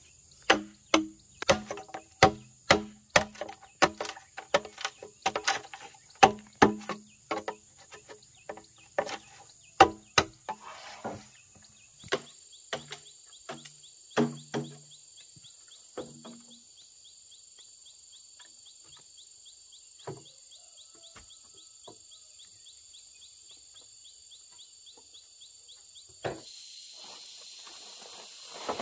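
Machete chopping into a green bamboo pole: sharp blows about two a second, each with a short ringing tone, for the first ten seconds or so, then a few slower strikes. After that, steady high insect buzzing with a fast ticking chirp, growing louder near the end.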